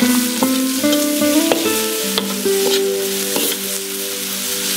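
Pork belly, onions and chillies sizzling in a hot iron wok while a metal spatula stirs and scrapes, making scattered clicks. Background music with held plucked notes plays along.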